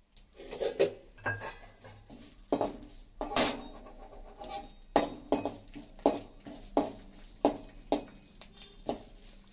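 A perforated metal ladle scraping and knocking against a metal kadai while stirring mustard seeds and dried red chillies in hot coconut oil for a tempering. The clicks are irregular at first, then settle into steady stirring strokes about every 0.7 s from about halfway through.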